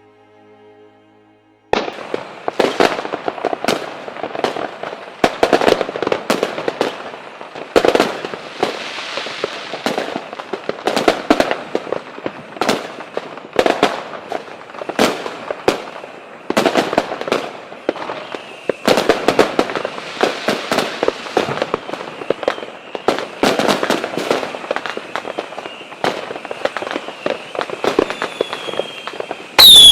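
Fireworks going off: a dense run of sharp bangs, pops and crackling bursts at irregular spacing, starting abruptly about two seconds in. A loud falling whistle comes at the very end.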